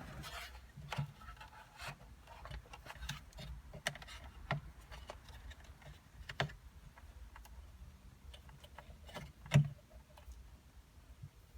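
Scattered small clicks and rustles of excess wiring being wrapped up and tucked in, with one louder knock about nine and a half seconds in.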